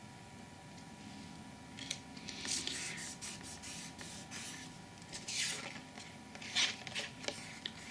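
Sheets of thin Metcalfe modelling card being handled, sliding and rubbing against each other and against a cutting mat. Short papery scrapes and rustles start about two seconds in and come in several bursts.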